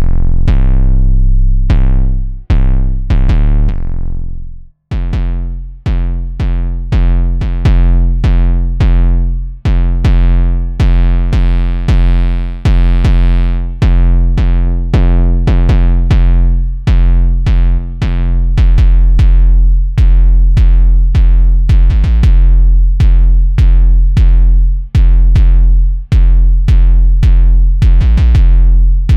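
Electronic music from a preset of the Attracktive sampled-instrument plugin: a loud, steadily repeating pattern of pitched notes over a deep bass and a drum-machine beat, with a short break about five seconds in.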